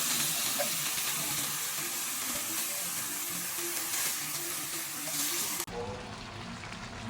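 Food sizzling as it fries in a hot pan, a steady hiss that cuts off abruptly a little before the end.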